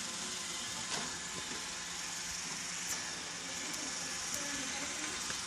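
Robot vacuum cleaner running steadily, an even whirring noise, with a couple of faint clicks about one and three seconds in.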